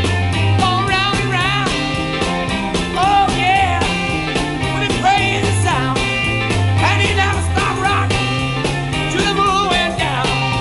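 1960s rock and roll band recording, a mono mix spread to stereo: a bass line stepping between notes under regular drum beats, with a lead line of wavering, bending notes on top.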